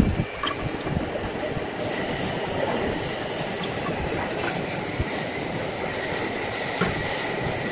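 Wood lathe running steadily, with a faint high whine and a few light knocks.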